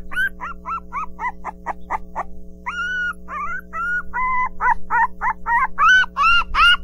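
Puppies whimpering and squealing as they jostle to nurse: a quick run of short, high cries, then longer rising-and-falling whines from about halfway in, over steady background music.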